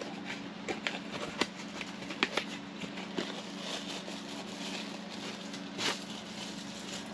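Steady electrical hum of a small milk-house fan heater running, with scattered light clicks and taps of someone moving about and handling things, and a brief rustle near the end.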